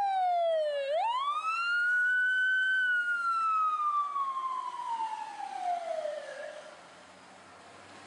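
Fire engine siren responding code 3: the wail falls, sweeps quickly back up about a second in, then glides slowly down in pitch and fades out about seven seconds in.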